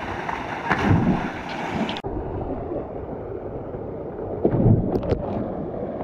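Water splashing in a creek swimming hole over a steady rush of water and wind-like noise on the microphone, with a loud splash about a second in as a jumper hits the water and another heavy splash after about four and a half seconds, the microphone close to the water's surface.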